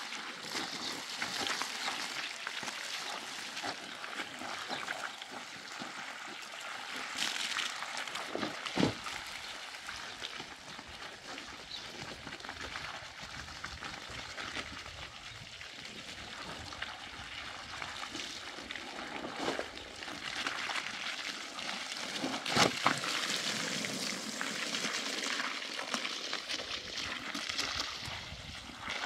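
Water trickling and pouring, with many small clicks and a couple of louder knocks.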